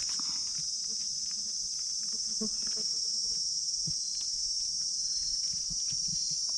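A steady high-pitched insect chorus, with faint scattered rustles and small snaps of forest leaf litter beneath it.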